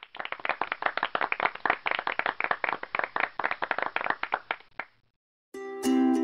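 Applause sound effect: a small crowd clapping densely for about five seconds, cueing the correct answer, then cutting off. Just before the end a plucked-string music jingle starts, louder than the clapping.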